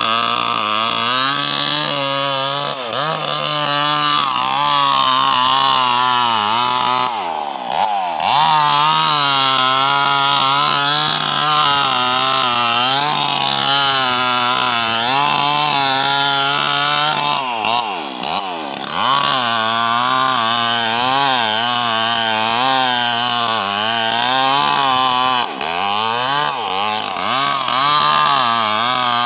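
Two-stroke chainsaw running under load while cutting into mahogany wood, its engine note wavering constantly. It bogs down sharply and recovers about eight seconds in, again around eighteen seconds, and briefly near the end.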